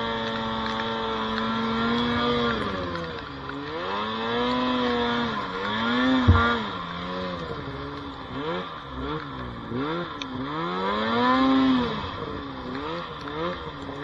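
Snowmobile engine running hard through deep powder. It holds a steady high pitch for the first couple of seconds, then the revs rise and fall over and over. A sharp thump comes about six seconds in.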